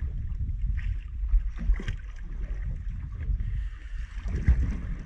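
Wind buffeting the microphone on a small drifting fishing boat, a steady low rumble, broken by a few sharp knocks of gear being handled: twice early on, about a second apart, and once more near the end.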